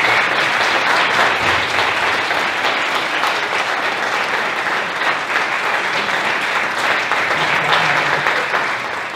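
Audience applauding, a dense, steady clapping that slowly dies down toward the end.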